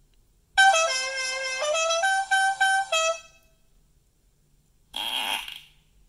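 Novelty sound effects played from a phone's speaker, triggered from a smartwatch: a short horn-like tune that opens with a falling glide and goes on in a few short stepped notes, then about two seconds later a brief raspy burst.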